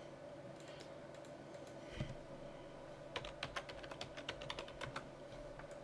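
Computer keyboard being typed on: a quick run of key clicks from about three to five seconds in, over a faint steady hum.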